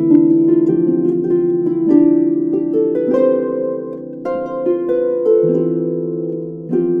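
Harp playing a tune: plucked notes ring on over one another above low bass notes.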